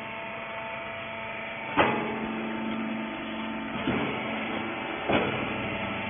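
Wiper rag baler running: a steady hum from its electric motor and hydraulic pump, broken three times by a clunk from the press, the first about two seconds in and the loudest.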